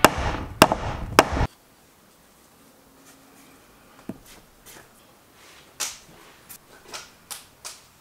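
Three sharp hammer blows about half a second apart, a ball-peen hammer striking a metal tool set into a wooden slab, over background music that stops suddenly about a second and a half in. Then scattered light taps and knocks on the wood.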